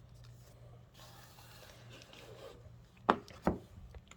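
A small photo book being handled and opened: soft paper and cover rustling, then two sharp knocks about half a second apart near the end as it is handled.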